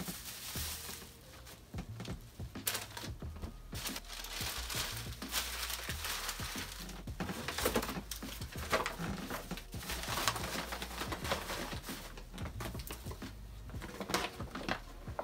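Plastic bags and wrappings crinkling and rustling irregularly as items are picked up, handled and sorted.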